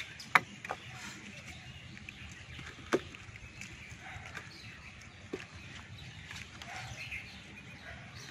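A few sharp knocks and slaps of small fish being picked up off the ground and dropped into a plastic bucket, the loudest just under half a second in and at about three seconds, with fainter ones between. Faint chirping sits under a steady low background hiss.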